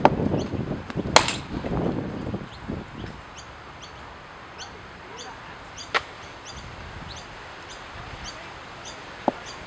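Cricket bat striking a leather cricket ball: one sharp crack with a brief ring about a second in, followed later by two fainter knocks. A bird chirps about twice a second throughout.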